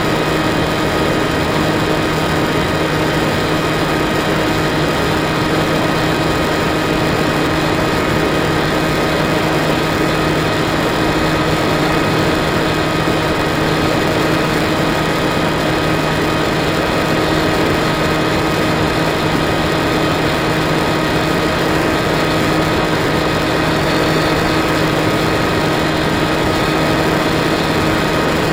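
Bixler 2 foam RC plane's electric motor and propeller running at steady power, a constant whine over a rush of wind noise.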